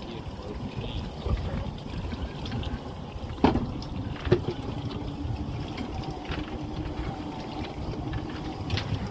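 Wind and water splashing against a small boat's hull. Two sharp knocks come about three and a half and four and a half seconds in, followed by a faint steady hum that lasts a few seconds.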